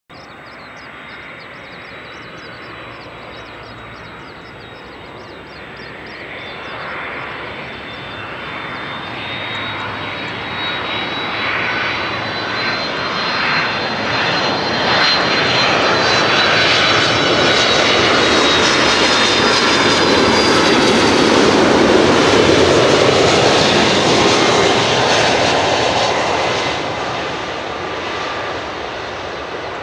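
Boeing 767-300 freighter's twin jet engines on final approach, with a high fan whine over the engine noise. It grows steadily louder as the jet comes in, is loudest a little past the middle as it passes, then eases off.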